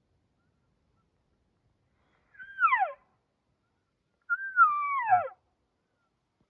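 Two cow-elk mews: short, whiny calls that slide down in pitch, the second holding its note briefly before dropping.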